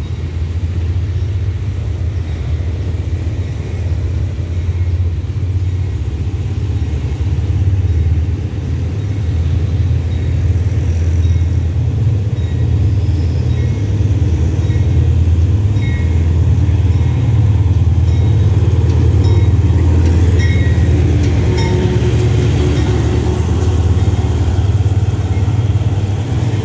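GE GEA-class diesel locomotive 4547 running as it hauls a passenger express past at low speed, a steady low rumble that grows louder as it draws close. Its bell rings faintly over the engine.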